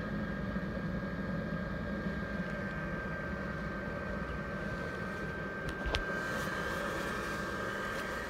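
The blower fan of an inflatable Christmas Grinch running steadily: a continuous hum with a constant high whine. A short click sounds about six seconds in.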